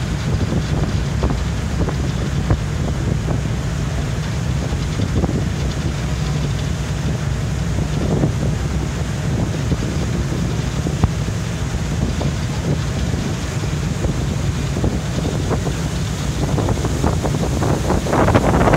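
Steady low drone of a motor boat's engines heard from on board, with wind buffeting the microphone. Near the end the rushing and buffeting grow louder as the boat's wake churns astern.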